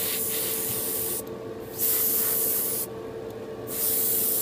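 Gravity-feed airbrush spraying white paint in light mist coats, hissing and cutting out twice for about half a second as it sweeps the part. A steady hum runs underneath.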